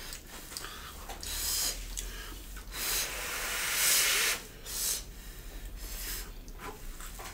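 Breathy hissing through the mouth while eating, several short breaths and one longer, louder hiss about three to four and a half seconds in: sucking air past a hot, spicy mouthful of rice and beef curry to cool it.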